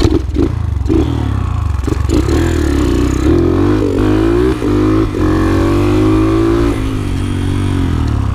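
Single-cylinder four-stroke engine of a modified Yamaha TTR125 flat-track bike, blipped a few times, then revving up hard as the bike accelerates, its pitch climbing with a couple of brief dips before holding high and easing slightly near the end.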